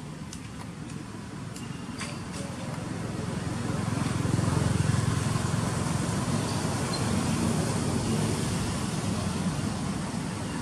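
Vehicle passing at a distance: a low rushing noise that swells to its loudest about five seconds in and then slowly eases off. A few faint clicks come in the first two seconds.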